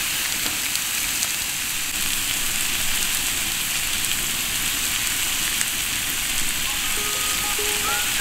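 Pork belly slices sizzling in a hot frying pan over a wood fire: a steady, dense spitting and crackling of fat. Soft background music with held notes comes in near the end.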